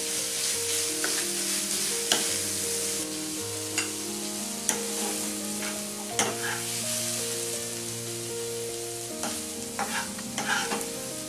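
Paneer bhurji sizzling in a hot kadai, a steady hiss, while a plastic spatula stirs and scoops it, scraping and knocking against the pan every second or two, with a quick run of taps near the end.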